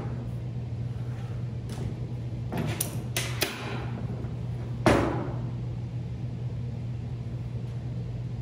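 Cast-iron vise parts knocking and clinking against a steel welding table while the vise is taken apart: a few light knocks, then one louder clank about five seconds in, over a steady low hum.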